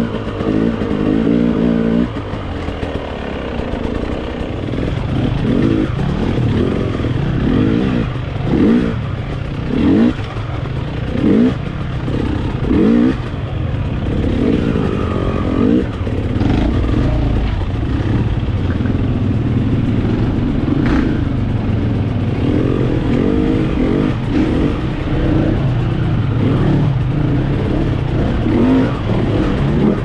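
Dirt bike engine running under load on a trail ride, the throttle worked in short bursts so the revs rise and fall. There is a string of quick revs about eight to fourteen seconds in, with steadier running before and after.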